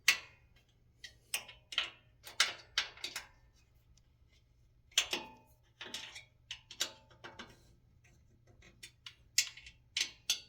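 A 5 mm Allen wrench clicking and clinking against the metal disc-brake caliper bolts as it is fitted and turned to tighten them: irregular sharp metal clicks, some in quick pairs.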